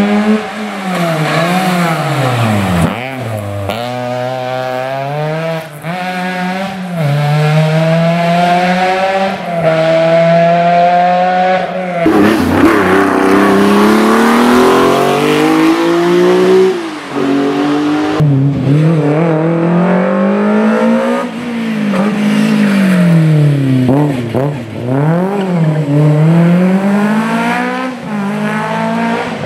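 Historic rally car engines revving hard, the pitch repeatedly climbing and then dropping at gear changes and braking, as cars run at full attack on a stage. The sound changes abruptly about twelve seconds in and again a few seconds later, as a different car takes over.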